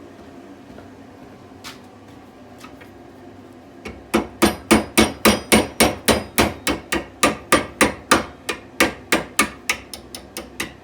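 Blacksmith's hammer striking hot steel, forging the blank of a fire steel. A fast, even run of blows, about four a second, begins about four seconds in and gets lighter toward the end.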